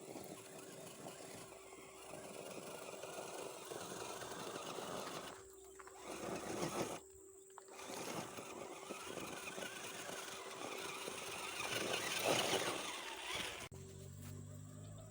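Radio-controlled rock crawler running, its brushed electric motor and gearbox whining while the tyres scrabble over the ground. The sound breaks off abruptly twice for a moment.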